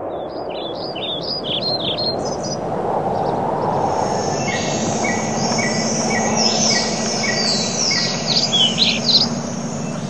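Tropical rainforest birds calling: a flurry of quick falling whistled notes in the first couple of seconds, then a short note repeated at an even pace over a steady high buzz, with more falling calls near the end, all over a steady low background hum.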